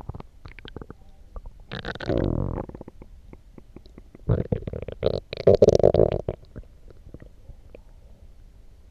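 Human stomach growling after coffee: a short gurgle about two seconds in, then a longer, louder rumble with a humming tone about four seconds in, with small pops and clicks between.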